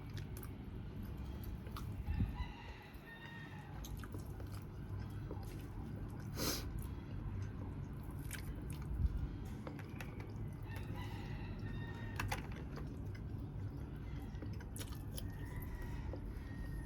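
Close-up eating sounds: chewing and biting into grilled chicken, with scattered crunchy clicks. A faint drawn-out pitched call sounds in the background a few times.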